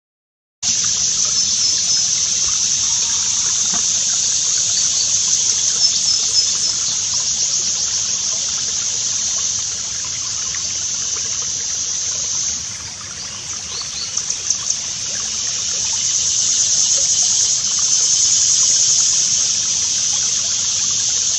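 Dense dawn chorus of insects such as crickets, a steady high-pitched shrill hiss, with a few short high chirps over it; its texture changes at a cut about twelve seconds in.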